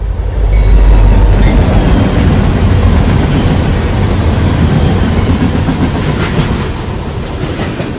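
Rumble of a passing train, loud from about half a second in and slowly fading over the last few seconds.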